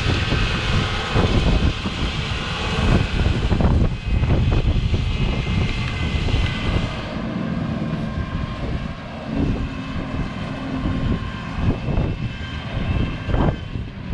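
Farm machinery engine running steadily, with gusts of wind buffeting the microphone.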